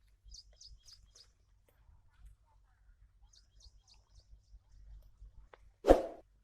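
A small bird calling in quick series of short high chirps, four and then five. Near the end comes a single louder, short clank.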